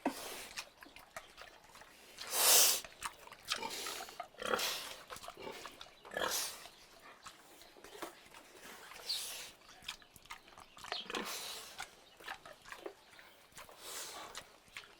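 Pig grunting in a run of short, irregular grunts, the loudest about two and a half seconds in.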